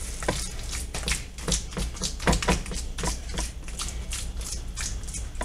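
A hand patting and pressing a wet stuffing casserole mixture flat in a baking pan: a run of soft, irregular pats and taps.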